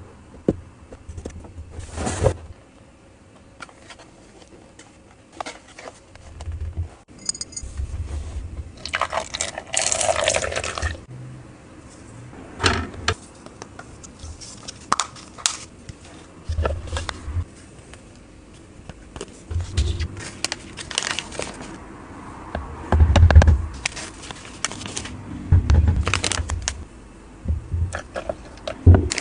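Hands handling a cardboard toy box and hard plastic parts: scattered taps, knocks and scrapes, with a longer rustling scrape about ten seconds in. Near the end, water is poured into the plastic cauldron.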